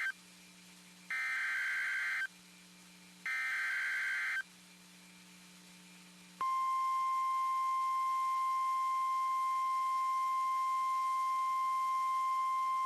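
NOAA Weather Radio SAME alert header: screeching digital data bursts. The tail of one is heard, then two more of about a second each, a second apart. About six seconds in, the steady 1050 Hz warning alarm tone starts and holds. Together they are the coded header and alarm tone that open a broadcast weather warning.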